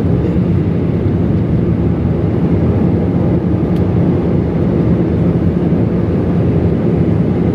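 Steady drone of an airliner cabin in flight: jet engine and airflow noise, a constant low rumble with a faint hum, unchanging in level.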